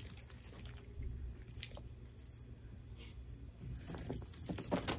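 Faint clinks and rustling of a metal chain purse strap being handled, with a cluster of clicks near the end.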